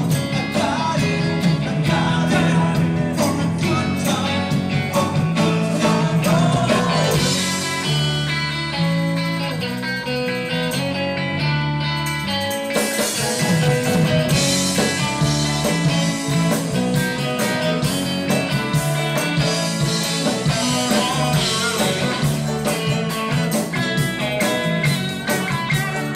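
Live blues-rock band playing, led by overdriven electric guitar through a Rocknroll Amps Blues Senior valve amplifier with four 6V6 power tubes, over drums, bass and keyboards.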